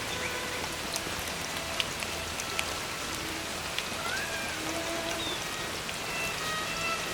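Steady rain falling, with drops ticking sharply on nearby surfaces. Faint short tones sound here and there over it.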